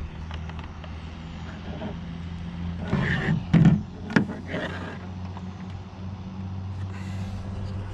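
A steady low hum runs throughout and stops abruptly at the end. Around the middle come several clicks and knocks as a coax cable is handled and plugged into the spectrum analyzer.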